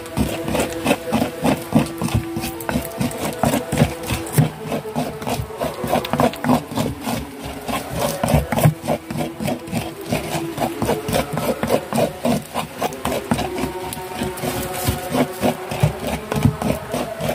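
Pestle grinding wet chili sambal with shrimp paste in a cobek mortar: a quick, uneven run of knocks and scrapes as the pestle is worked round and pressed against the bowl.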